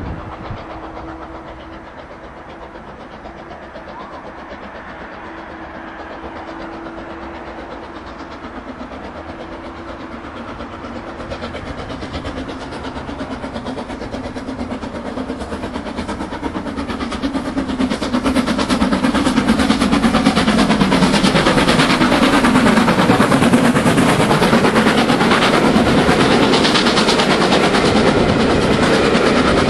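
LMS Stanier 8F 2-8-0 steam locomotive 48151 and its coaches approaching and running past close by. The sound builds from a faint distant rumble to a loud, dense rapid clatter from about 17 seconds in.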